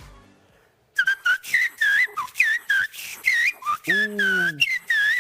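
A man imitating a bird's song by mouth-whistling: after a second of quiet, a quick run of warbling chirps that swoop up and down. About four seconds in, a brief lower voice sound slides downward between the chirps.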